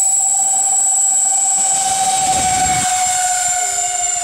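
Four 50mm electric ducted fans on an RC C-141B Starlifter model running at full power through the takeoff run and climb-out, a loud, steady high-pitched whine. A brief low rumble comes in about two seconds in.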